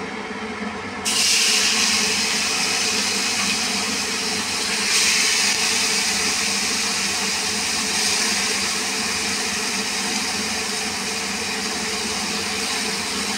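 Chopped tomatoes and vegetables dropped into hot oil in a steel kadai about a second in, setting off a loud sizzle that swells again near five seconds and then slowly eases. Under it, the steady hum of a kitchen chimney (range hood) fan.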